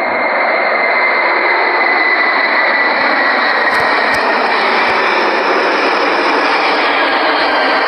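Airliner engines running steadily: an even rushing noise with a thin whine that slowly falls in pitch.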